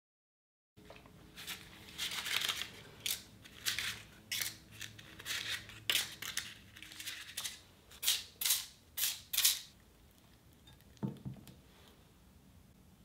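Paper muffin liners crinkling and rustling in a quick run of short bursts as they are pulled apart and set into the cups of a metal muffin tin, then a single dull knock.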